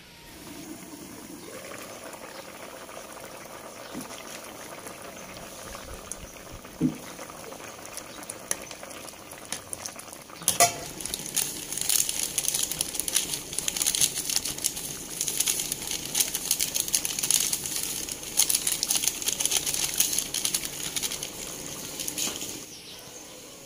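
Pork-blood stew (tinumis) boiling hard in a wide pan, bubbling with dense popping and crackling. It comes in loud about ten seconds in, after a quieter stretch, and drops away just before the end.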